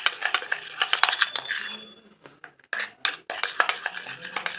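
A spoon scraping and clinking against a small bowl as a thick aloe vera foundation mixture is stirred, in quick runs of clicks with a short pause about two seconds in.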